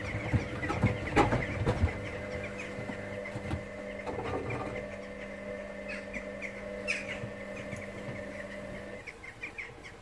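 Hoover Dynamic Next front-loading washing machine in its wash cycle, the drum tumbling wet laundry with irregular thuds over a steady motor hum. The hum stops about nine seconds in as the drum pauses.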